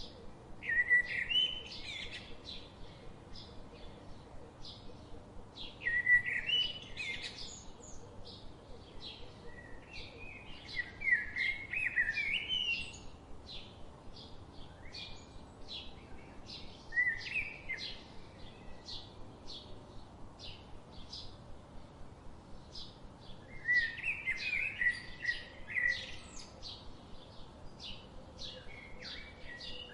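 Songbirds singing: short high chirps repeating about once or twice a second throughout, with louder warbling song phrases, each a second or two long, coming about every five to six seconds.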